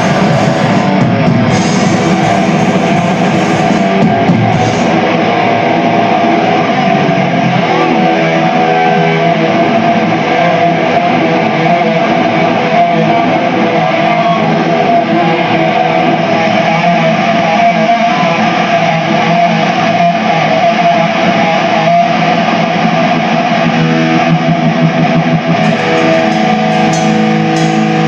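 Distorted electric guitar playing heavy metal, loud and continuous.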